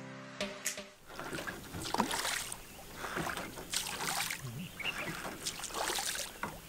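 Guitar music stops about a second in; then a small hand-rowed boat moves along, its oars dipping and splashing in the water every second or two.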